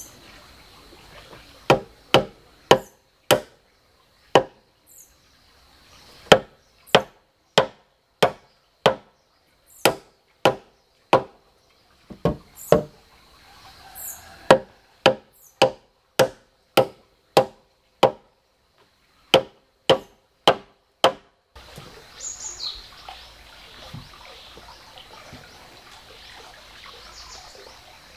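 Hatchet chopping into a wooden log: sharp strikes about two a second, in runs with short pauses. The chopping stops about three-quarters of the way through, leaving a quieter outdoor background.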